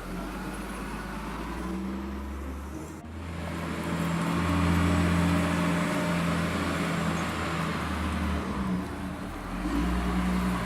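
Vehicle engine running steadily, its pitch and loudness stepping up and down several times, with a sudden break about three seconds in.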